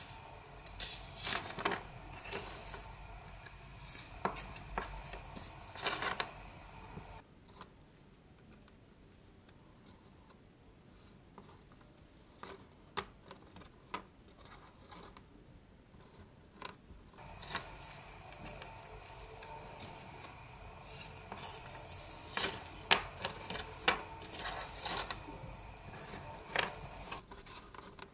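Thin wire being threaded and pulled through pieces of toilet-roll cardboard: irregular small clicks, scrapes and rustles of handling, quieter for a stretch in the middle.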